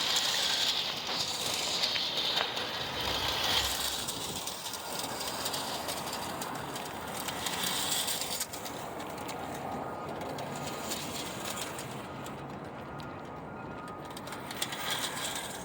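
American Flyer O gauge wind-up toy train running, its clockwork motor making a steady high whirr with light ticking; the high part fades somewhat in the second half.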